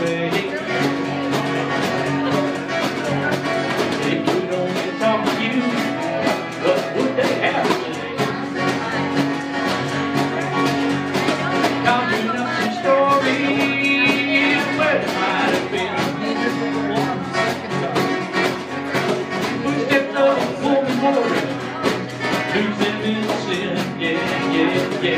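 Live acoustic guitar strummed with djembe and hand percussion playing a steady beat.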